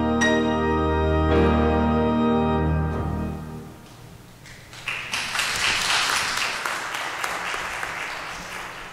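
Sustained instrumental chords with a deep bass close a piece of music and fade out about three and a half seconds in. About a second later the congregation applauds, a dense patter of clapping that slowly tapers off.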